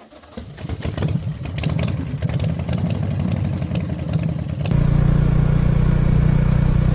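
Motorcycle engine running, at first fairly quiet under scattered clicks and clatter; about two-thirds of the way in it cuts abruptly to a louder, steady engine note as the bike rides along.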